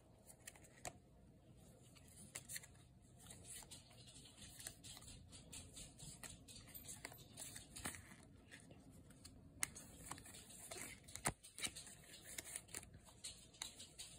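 Faint crinkling and rustling from a foil Pokémon booster pack and cards being handled and opened, with scattered small clicks and a couple of louder taps in the second half.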